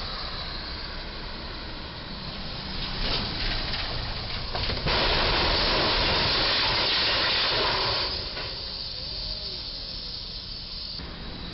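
Moving truck's box body smashing into a low steel railroad trestle: a few knocks, then a loud, harsh hiss-like noise that starts suddenly about five seconds in and lasts about three seconds.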